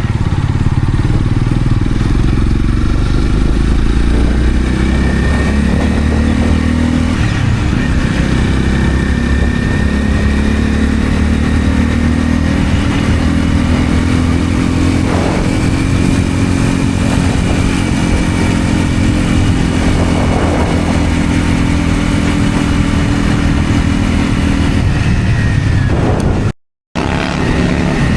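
Honda CL250 scrambler's single-cylinder engine running on the move, its revs climbing as it accelerates and then holding fairly steady at cruising speed. The sound cuts out completely for a moment near the end.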